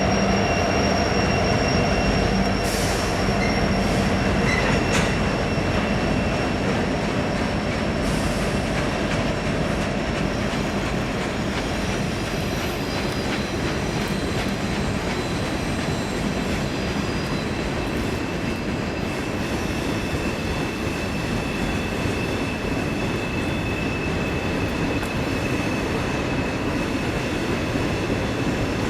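Freight train rolling past with a continuous rumble of wheels on rail and a thin, steady high squeal from the wheels. A low engine hum is heard in the first few seconds.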